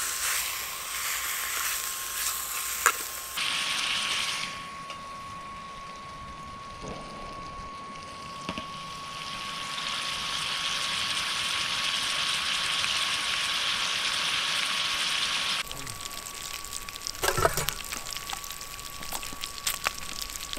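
Bacon sizzling in a titanium fry pan on a Biolite Campstove 2, a steady hiss that swells and drops abruptly in places. A faint steady whine from the stove's fan runs under it. A few light clinks of a spork against the pan come in the first few seconds and again near the end.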